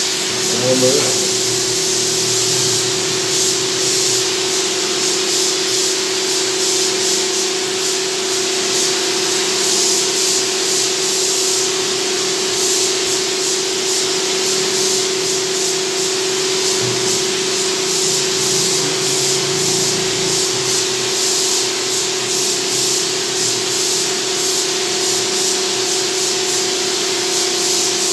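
Gravity-feed air spray gun hissing steadily as compressed air atomizes the finish, over a steady low hum.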